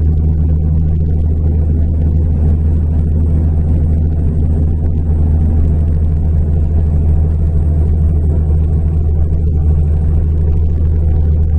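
Inside a SOR CN12 intercity bus cruising at steady speed: a constant low engine drone with road and tyre noise, heard from the passenger cabin.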